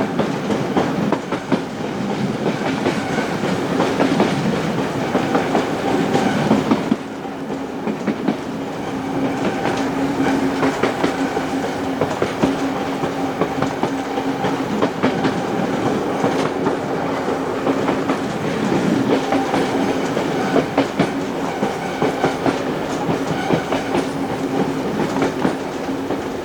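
Passenger train running on the rails, its wheels clicking over the track over a steady hum and rumble. The level drops suddenly about seven seconds in.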